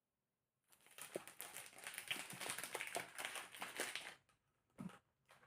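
A quick, dense run of small clicks and crackles lasting about three seconds, then a single click near the end.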